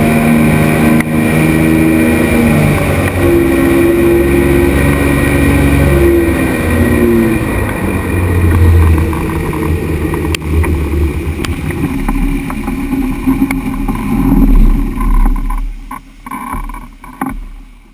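Ultralight flying boat's pusher-propeller engine running, its pitch stepping down and up as the throttle is worked on the low approach over the sea. In the last few seconds the hull runs on the water with a rushing rumble while the engine sound dies away.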